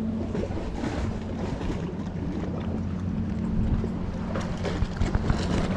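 A steady low motor hum with wind on the microphone, and a few light knocks near the end.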